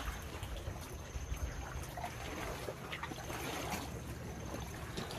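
Water trickling and splashing around a paddled sea canoe, with a paddle dipping every second or so, over a low steady rumble.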